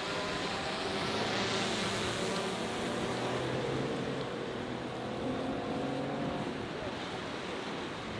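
Outboard motor of a small center-console boat running through choppy water, its pitch shifting a few times as the throttle changes, over a steady rush of water.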